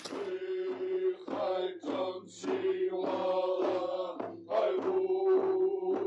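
Background music: a man chanting in long held notes, broken at a regular pulse about twice a second.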